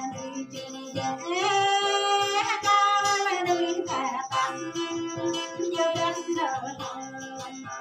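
A woman singing a Jarai-language folk song, holding long notes, over a strummed acoustic guitar.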